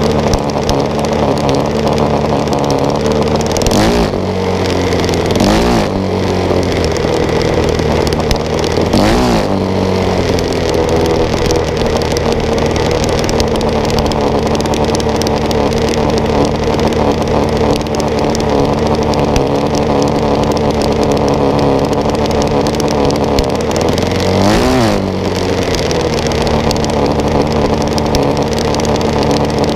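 Jr. dragster's single-cylinder engine running steadily at low speed, heard close on the car, with four brief dips and rises in engine speed, the last about twenty-five seconds in.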